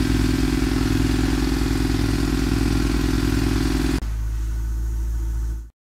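Power drill sound effect: a steady mechanical drilling whir over a low hum, which drops to a quieter, duller running about four seconds in and then cuts off abruptly.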